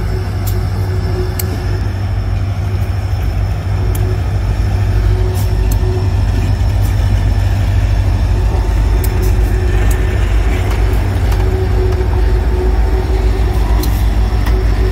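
Reading and Northern EMD SD40-2 diesel-electric locomotives running as they roll slowly past close by: a steady, deep engine sound that grows slightly louder a few seconds in, with occasional sharp clicks.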